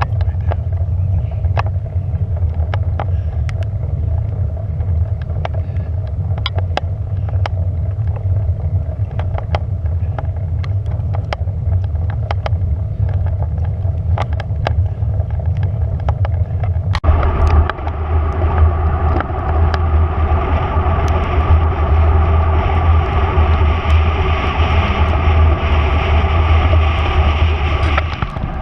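Steady low rumble of travel noise, wind and road, with scattered sharp clicks. About seventeen seconds in it abruptly turns louder and hissier and stays that way.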